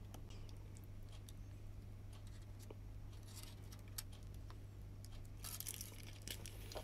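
Faint crinkling and clicking of a thin clear plastic clamshell takeout container being handled as a takoyaki is taken from it, over a steady low hum.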